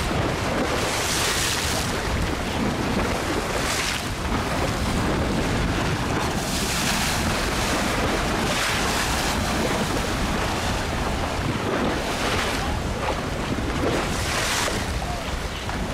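Choppy waves splashing against a seawall and a swamped boat, with a surge every few seconds, under steady wind buffeting the microphone.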